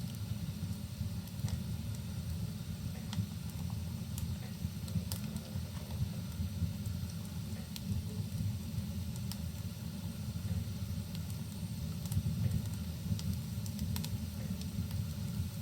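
Wood fire crackling, with scattered sharp pops and snaps over a steady low rumble.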